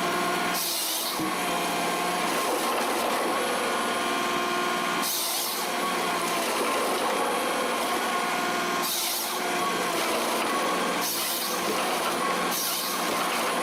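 John Deere 1270E forestry harvester running steadily, its engine and hydraulics giving a constant droning whine. Short hissing bursts come every couple of seconds as the head works.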